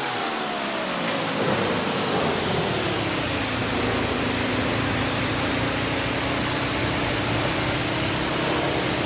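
Touchless automatic car wash machine running: a steady hiss of high-pressure water spray over a motor whine that falls in pitch over the first few seconds and then holds steady.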